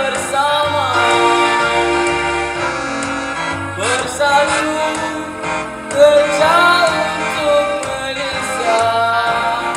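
A young man singing a slow patriotic ballad solo into a microphone over an instrumental backing track, holding long, wavering notes.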